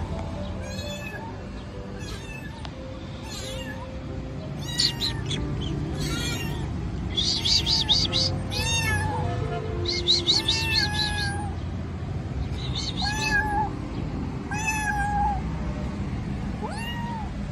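Young kitten meowing loudly and repeatedly, a dozen or so short high calls spread a second or so apart.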